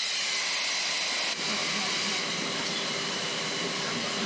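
A steady, loud hiss, mostly high-pitched, with a brief dip about a second and a half in.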